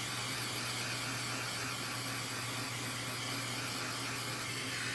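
Handheld butane torch burning with a steady hiss, heating heat-shrink tubing, over a steady low hum.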